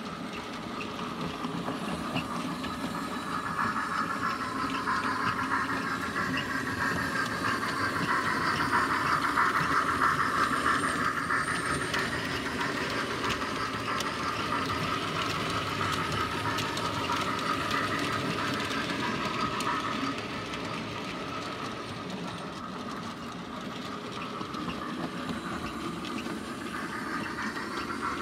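A 00 gauge model coal train running along the layout's track. It makes a steady rolling sound that swells louder about a third of the way through, then eases off.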